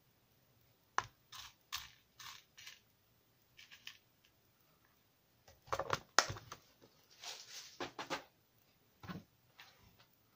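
Handling sounds from a hard clear plastic compartment box of rhinestones: small clicks and short scratchy rustles as it is rummaged, with a sharp click about six seconds in as the lid snaps shut.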